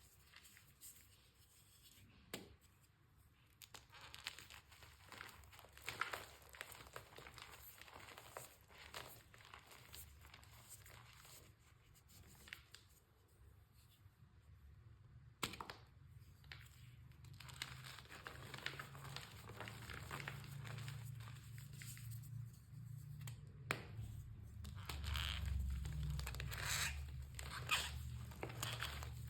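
Fresh homemade chalk blocks being crushed: a long string of soft squeaky crunches and crumbles, growing louder and denser over the second half.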